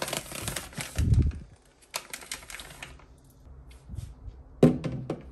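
Plastic items being moved and set down on a sink counter: rustling of a soft plastic wet-wipes pack and clicks and knocks of a plastic corner shelf, with a dull thump about a second in.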